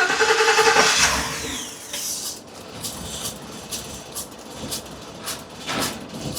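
Ford 6.2-litre gasoline V8 just started, flaring up loudly for about a second with a falling whine, then settling to an idle broken by irregular sharp ticks. The engine has a misfire detected on cylinder number 3.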